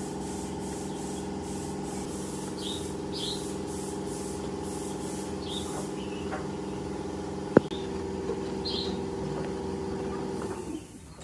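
Steady mechanical hum made of several level tones, like a motor running, which dies away near the end. Over it come a few short high chirps and one sharp knock about seven and a half seconds in.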